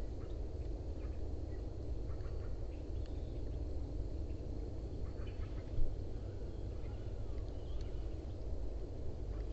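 Outdoor ambience: a steady low rumble with faint, short bird chirps and calls scattered through it, and one brief thump about six seconds in.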